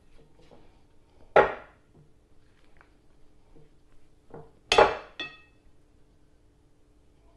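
A spatula knocking against a glass mixing bowl while dough is mixed in it: one sharp knock about a second and a half in, then a quick cluster of three a few seconds later, the bowl ringing briefly after the last. Soft scraping of the dough comes between the knocks.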